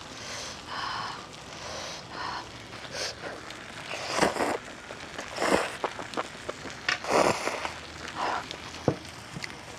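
Instant ramen noodles being slurped and chewed from chopsticks, with short slurps about four, five and a half and seven seconds in, over a faint crackle from the tabletop electric grill.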